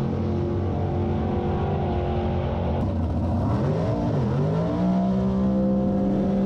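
Drag racing car engines running hard, their pitch dropping sharply and climbing back about four seconds in, then holding high.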